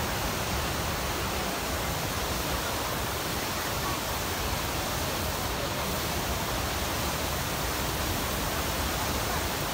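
Pykara Falls waterfall rushing, a steady, unbroken noise of falling water.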